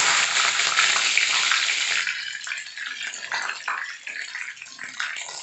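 Whole spices (bay leaves and cinnamon sticks) sizzling in hot mustard oil in a kadai. The sizzle is loud at first, then dies down after about two seconds to a lighter crackle.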